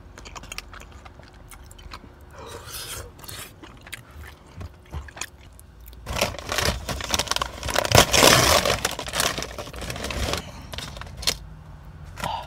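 Faint mouth-closed chewing. About six seconds in it gives way to loud rustling and crinkling of a plastic takeout bag as it is rummaged through, lasting about four seconds, then a few light clicks.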